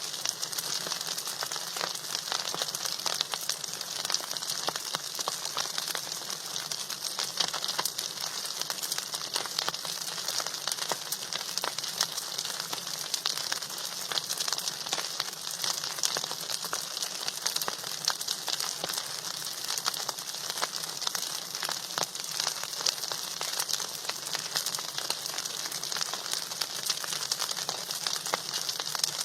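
Food sizzling and crackling in hot oil in a pan, a steady dense crackle of many fine pops.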